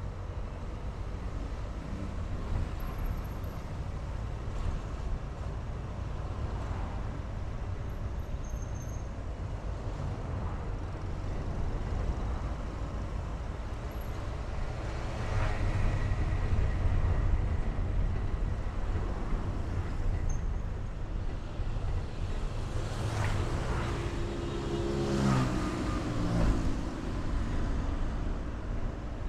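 Steady road and engine noise of a car driving through city traffic. It grows louder a little past the middle, and near the end two vehicles whoosh past, one with an engine note that falls in pitch.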